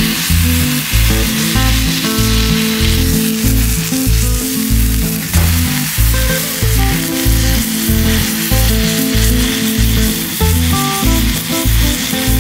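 Beef chuck roast sizzling as it sears on a hot Blackstone flat-top griddle, the reverse-sear finish, under background music with a steady beat.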